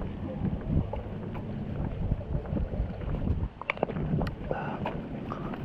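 Wind buffeting the camera microphone as a steady low rumble, with irregular thumps and a few sharp clicks in the second half.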